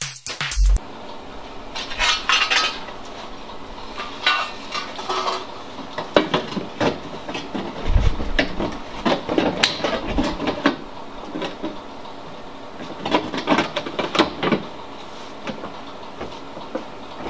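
A sheet-steel wheel-arch repair panel being handled and test-fitted against a car body: scattered metallic clanks, clinks and scrapes in several short clusters, with one dull thud near the middle.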